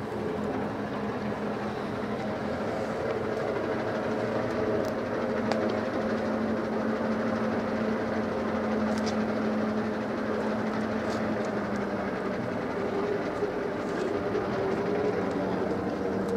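A vehicle engine idling with a steady droning hum that wavers slightly in pitch, over street noise and a few faint ticks.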